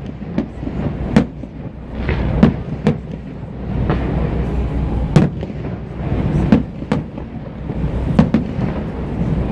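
Fireworks bursting overhead: a string of sharp bangs at irregular intervals, about eight in all, each followed by a short echo, over a steady low rumble.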